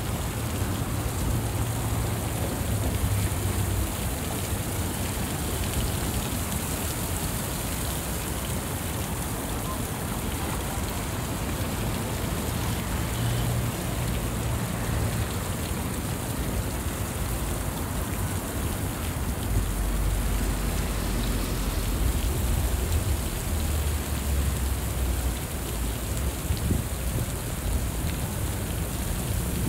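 Steady outdoor city street ambience: an even, continuous hiss with a low rumble that swells and fades, heaviest about two thirds of the way through.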